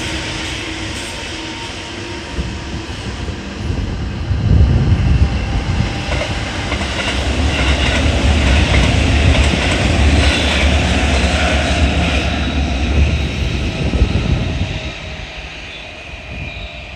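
A Japanese level-crossing bell ringing as two JR electric trains, a 205 series and a 221 series, pass each other over the crossing. The rumble and clatter of the wheels swell up about four seconds in, stay loud for some ten seconds, then fade near the end.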